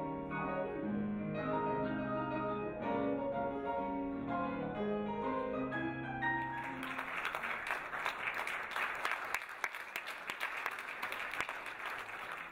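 Grand piano playing a solo jazz improvisation. About six and a half seconds in, the audience breaks into steady applause that lasts to the end.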